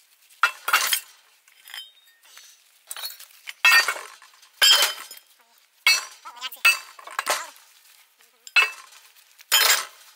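Rusty scrap iron parts clanking as they are tossed and stacked onto a pile of metal. About ten sharp metallic clanks come roughly one a second, each ringing briefly.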